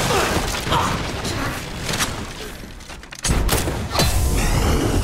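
Action-film fight sound effects: a wall smashing apart with debris, then a string of sharp hits and bangs. A sudden loud boom comes a little over three seconds in.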